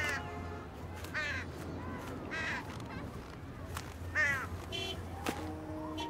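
Crows cawing: four harsh caws spaced about one to two seconds apart over a steady low hum, with soft musical notes starting near the end.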